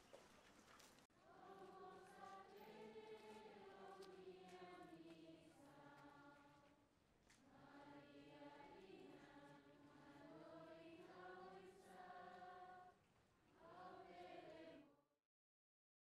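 A crowd of voices singing a hymn together in long, held phrases. The singing starts about a second in and cuts off abruptly near the end.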